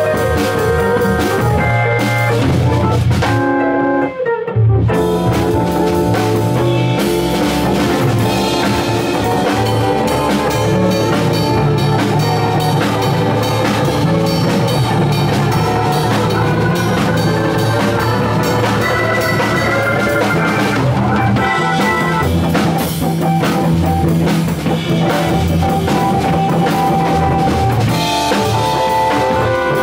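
Live jazz combo of drawbar organ, archtop electric guitar and drum kit playing an upbeat instrumental. About four seconds in the band stops for a moment, then comes straight back in.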